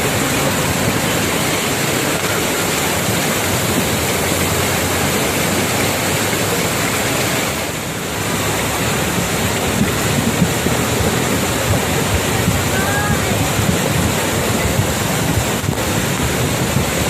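Floodwater rushing past in a fast, heavy flow: a loud, steady rushing noise with no rhythm.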